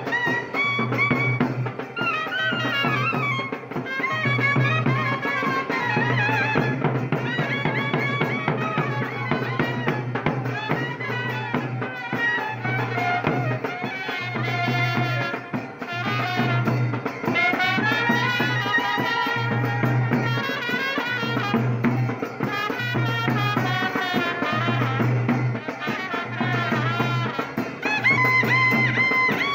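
Background music: a winding melody over a steady low beat.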